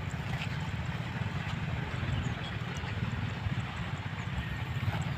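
Stihl MS 381 two-stroke chainsaw idling with a steady low rumble.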